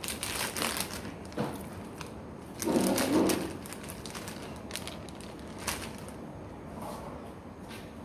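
Clear plastic zip-top bag crinkling and rustling in the hands as a raw chicken breast is put into it, with a louder rustle about three seconds in and scattered crackles around it.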